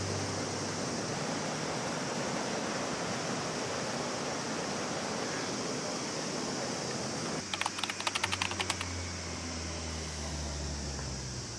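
Steady outdoor background hiss, like flowing river water, as music fades out in the first second. About seven and a half seconds in comes a brief burst of rapid clicking, and a low hum joins after it.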